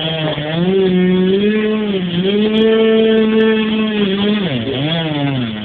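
Music: a melody of held notes that slide up and down in pitch.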